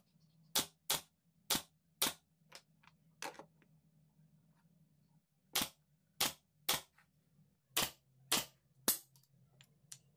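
JOK pneumatic nail gun firing nails into small wooden pieces: about a dozen sharp shots in two runs, with a pause of about two seconds between them.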